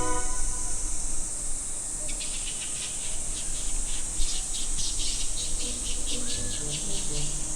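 Summer cicadas calling: a steady high-pitched hiss, with a pulsed call of about four beats a second setting in about two seconds in. A brief rising-and-falling call is heard once near the end.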